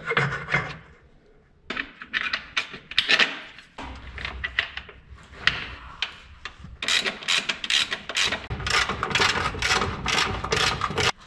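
Metal hand tools working on the engine-mount bolts of a Ford Mondeo ST220: a run of clicks and scraping knocks. It pauses briefly near the start and comes thick and fast in the last few seconds.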